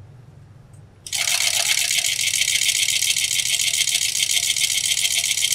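Fur sewing machine (overedge furrier's machine with two horizontal feed discs) starting up about a second in and stitching fur: a fast, even, high-pitched rattle of the needle that runs steadily on, over a low hum.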